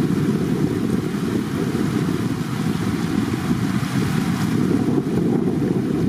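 Steady rush of fast, shallow water flowing over a rock slab.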